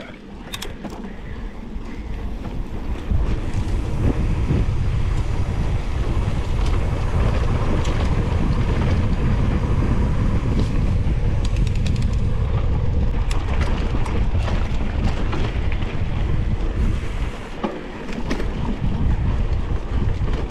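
Wind rumbling on a GoPro action camera's microphone as a mountain bike rolls along a trail at speed, with tyre noise and scattered clicks and rattles from the bike. It builds over the first few seconds and eases briefly near the end.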